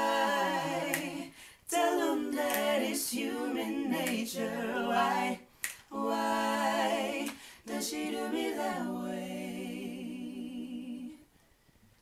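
A small group singing wordless vocal harmonies, with finger snaps between phrases; a final held chord fades and stops about eleven seconds in.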